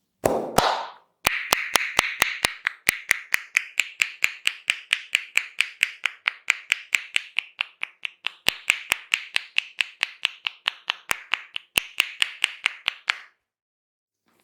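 Indian head massage tapping: the barber's hands strike the head in a fast, even run of sharp claps, about six a second, that stops suddenly near the end. A short swish comes just before the claps begin.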